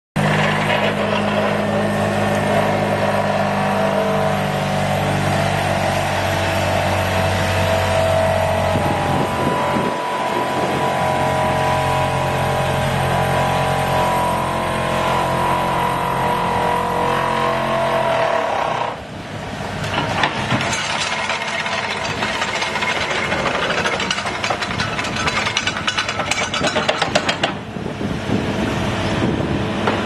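An excavator-mounted vibro hammer working steel sheet piles over the excavator's diesel engine, a loud, steady, low droning hum. A little past halfway the sound changes suddenly to a rougher, rattling clatter.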